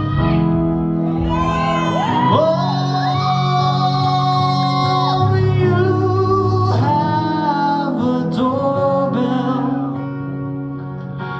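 Live band performing a song, with singers holding long notes that glide up and down in pitch over steady bass. The sound dips a little near the end before the full band comes back in.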